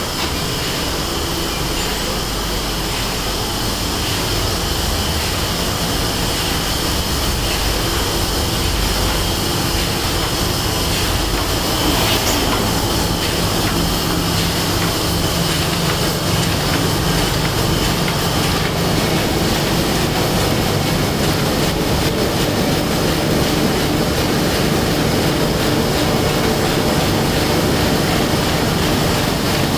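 2001 Komori Lithrone four-colour sheetfed offset press running: a loud, continuous mechanical clatter and hum from its feeder and printing units.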